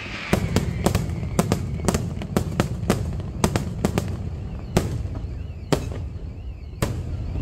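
Aerial fireworks shells bursting in rapid, irregular bangs, several a second for about four seconds, then three single bangs about a second apart, over a constant low rumble.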